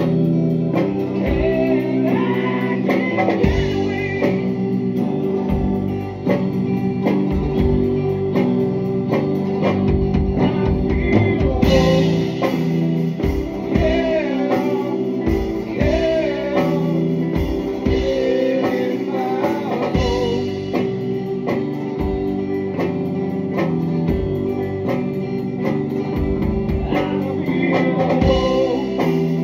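Rock band playing live, with guitar, drum kit and a singing voice.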